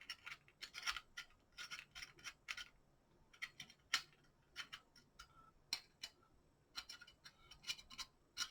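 Faint, irregular small metallic clicks and scrapes of screws being hand-started and turned into a quad rail's clamp.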